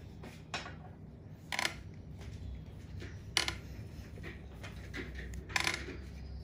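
Small metal instruments clinking: four short clinks, the loudest about three and a half and five and a half seconds in, over a low steady hum.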